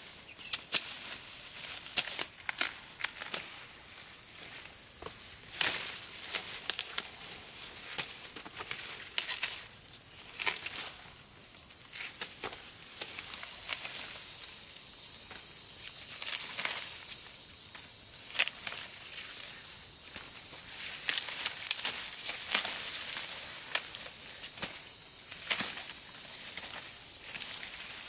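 Insects chirping in a fast pulsing trill that stops for a few seconds about halfway through, over scattered sharp cracks and snaps.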